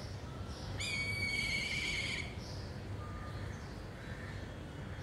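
A kite (bird of prey) gives one high, whistling call about a second in, rising briefly at the start and then held with a quavering tail for about a second and a half.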